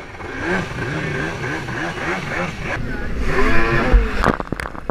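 A freestyle jet ski's engine revs up and down in quick swells, over and over, then winds down in a falling sweep. Over the last second come heavy splashes and thuds of water.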